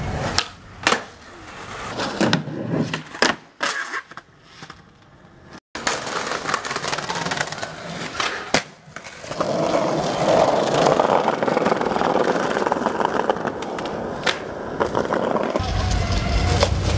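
Skateboard wheels rolling on concrete, broken by repeated sharp clacks of the board popping and slapping down on the ground and ledges.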